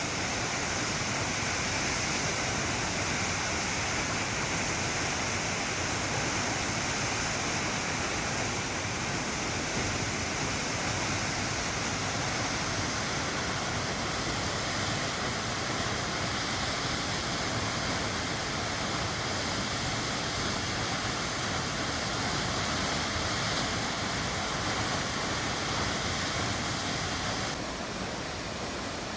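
South Falls, a 177-foot waterfall on South Fork Silver Creek, falling steadily, with a dense, even rush of water. It dips slightly in level near the end.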